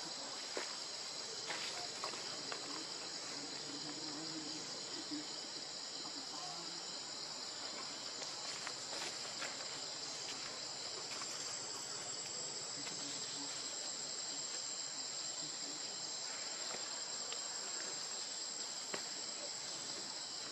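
Steady, high-pitched chorus of insects droning without a break, with a few faint clicks over it.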